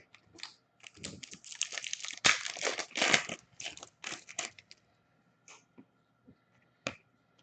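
A hockey card pack's wrapper being torn open and crinkled: a dense crackle lasting about three and a half seconds, loudest in the middle, followed by a few light clicks.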